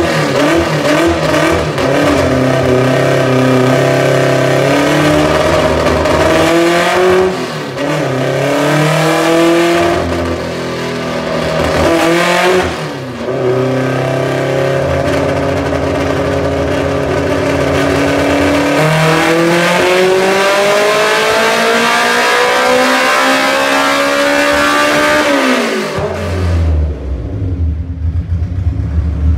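Honda Civic EF four-door engine running a dyno pull on a nitromethane fuel mix, with the car driving the dyno rollers. The revs climb through the gears with brief drops at the shifts, then rise steadily at full throttle in one long pull that cuts off sharply near the end, falling back to a low rumble.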